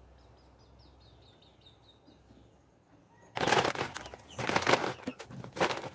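Plastic bag of shredded pizza cheese rustling as the cheese is shaken out onto bread pizzas. It comes in several loud spells, starting a little over three seconds in, after a nearly silent start.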